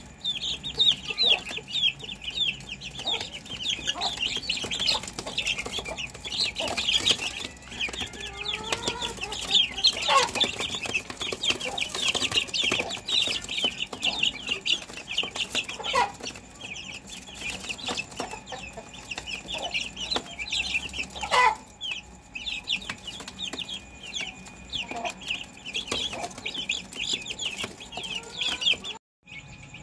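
A group of young, half-grown chickens peeping continuously: a dense stream of short, high peeps, with a few lower, gliding calls about a third of the way through. The sound drops out for a moment near the end.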